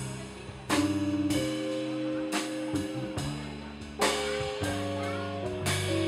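Live band playing without vocals: sustained keyboard chords over low bass notes, with a drum kit keeping time and two strong drum-and-cymbal hits, about a second in and again about four seconds in.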